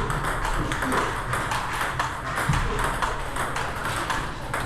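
Table tennis ball clicking off rubber paddles and bouncing on the table in quick succession, about two or three hits a second, during flick-stroke practice.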